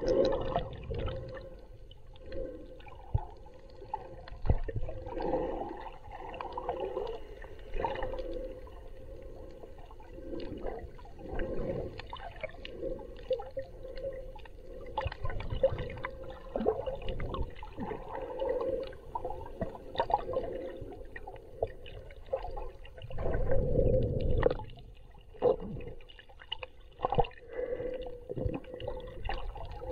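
Muffled water sloshing and rushing around a camera held underwater, coming in uneven surges, loudest a little over three quarters of the way through. A faint steady hum runs underneath.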